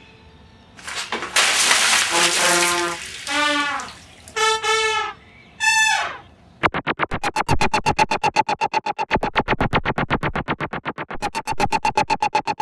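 Soundtrack music: after a short burst of noise, a brass phrase of four notes, each sliding down in pitch. About two-thirds of the way through it gives way to a fast, even pulsing synthesizer beat.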